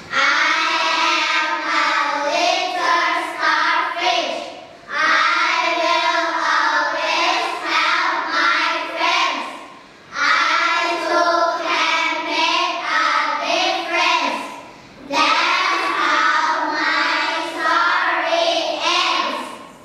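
A group of children singing a song together, unaccompanied, in phrases with short pauses between them.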